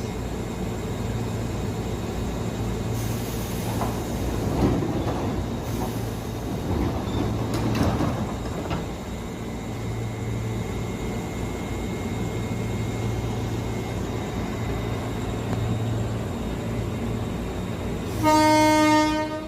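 JR 203 series electric commuter train running with a steady low hum and two brief rumbling surges. Near the end it sounds one horn blast of about a second, the loudest sound.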